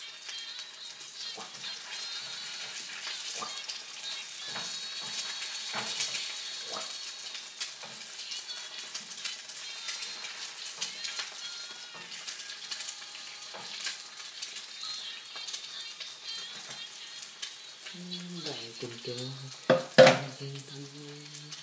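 Eggs sizzling as they fry in a nonstick skillet, with a wooden spatula scraping and tapping the pan in small clicks. Near the end a sung melody comes in, and about 20 seconds in a single sharp knock is the loudest sound.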